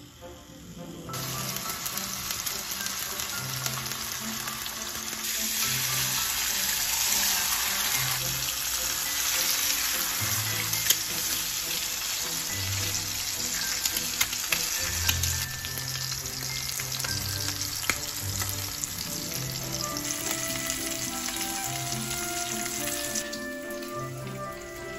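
Bacon, then bacon and eggs, frying in a cast iron skillet with a steady sizzle. The sizzle starts about a second in as the raw bacon goes into the hot pan, and eases off near the end.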